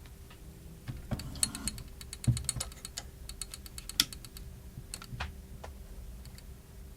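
Small, sharp clicks and taps of repair tools and tiny parts being handled on an iPhone 4S, a quick cluster about a second in and a few scattered ones after, two of them louder. A faint steady hum lies underneath.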